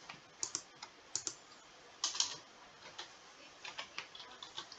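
Computer keyboard typing: a handful of separate keystrokes spaced out, then a quicker run of several near the end.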